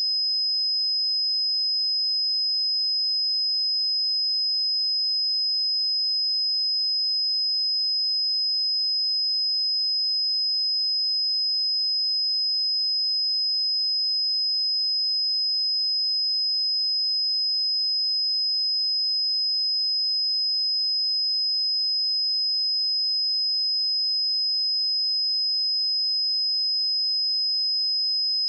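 A pure 5063 Hz sine-wave test tone, a single high-pitched steady whistle-like tone held at constant level.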